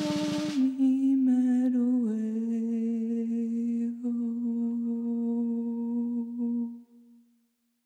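A woman's voice humming a slow melody that steps down and settles on one long held low note, fading out about seven seconds in as the song ends. A drum-kit cymbal wash cuts off just under a second in.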